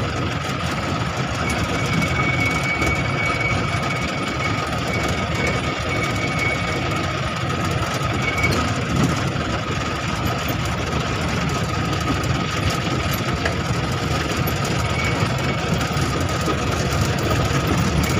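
Vehicle engine and road noise heard from inside the moving vehicle: a steady low running sound with a thin steady whine over it.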